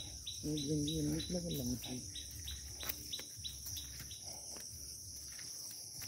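Crickets trilling in a steady, high-pitched drone. A run of soft ticks, about three a second, sounds over the first few seconds.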